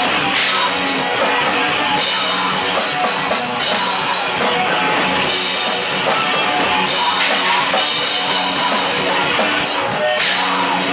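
A live rock band playing loud: electric guitars over a drum kit with repeated crashing cymbals.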